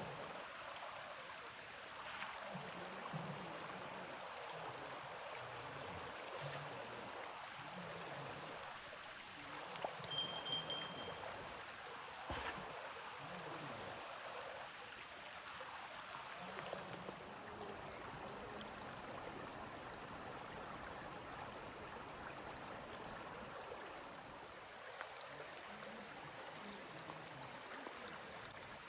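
Steady rushing sound like running stream water, with a few faint clicks and a brief high tone about ten seconds in.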